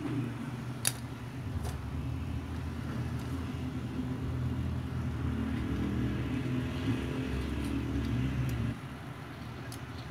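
A motor vehicle's engine running, swelling about halfway through and then dropping away sharply near the end, with a few sharp clicks over it.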